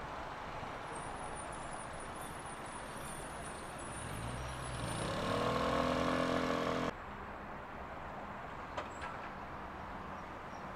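1970s Waggon Union GT8 eight-axle articulated tram running on street track amid traffic noise. About four seconds in, a motor hum rises in pitch, holds steady, then cuts off abruptly shortly before seven seconds.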